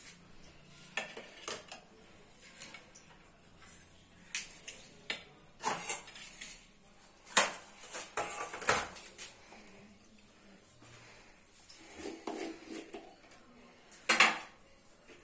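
Stainless steel cups, saucers and plates clinking and clattering as they are handled and set down on a stone countertop: scattered sharp metallic knocks, the loudest a little past the middle and just before the end.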